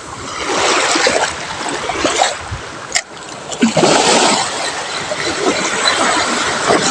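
Sea water splashing and washing against the shore in surges, with a sharp click about three seconds in.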